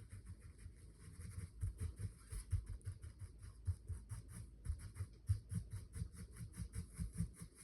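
A makeup brush dabbing and chopping paint onto a sign: a quick, steady run of soft taps, several a second, each with a dull knock from the board.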